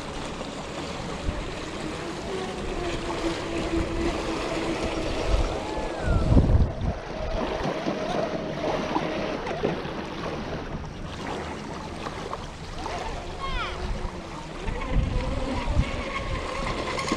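Electric motor of a Pro Boat Blackjack 42 remote-control catamaran whining out on the lake, its pitch rising and falling as the throttle changes. Small waves lap on the shore, and a gust of wind hits the microphone about six seconds in.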